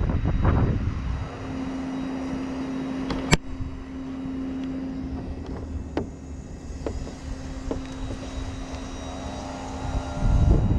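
Engine-driven machinery running steadily with a low rumble and a constant hum. There is a single sharp crack about three seconds in and a few light clicks later, and a louder burst near the end.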